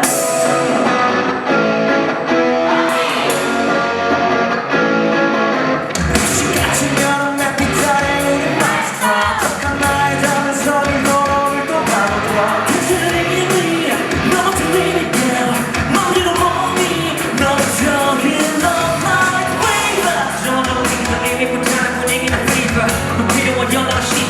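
A rock band playing a song live with a singer; drums and bass come in about six seconds in, after a lighter intro.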